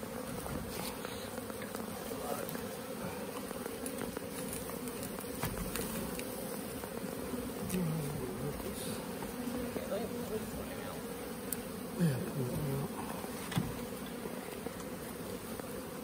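Honey bee swarm humming close up: a steady buzz of many bees clustered and flying, with single bees passing close by now and then in short louder buzzes that rise and fall in pitch.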